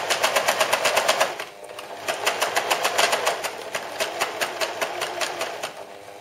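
Electric sewing machine stitching a topstitch along a trouser hem, its needle mechanism making a fast, even clatter. It stops briefly a little over a second in, then sews again and grows quieter toward the end.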